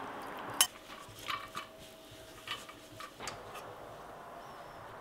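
Kitchen utensils knocking and clinking against cookware: one sharp clack about half a second in, then several lighter, irregular clinks over the next few seconds.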